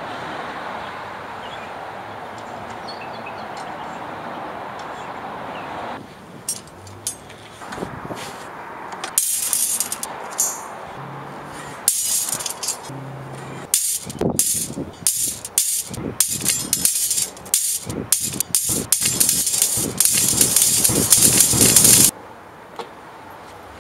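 Steel rebar rings clanking and rattling as they land on a pile. The clatter comes in quick bursts from about nine seconds in, grows denser and louder, and cuts off sharply near the end. A steady hiss fills the first six seconds.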